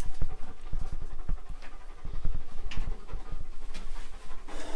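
Dog panting quickly and steadily close by.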